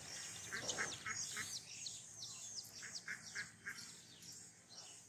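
Ducklings and chicks peeping, a fast run of many short, high, falling peeps.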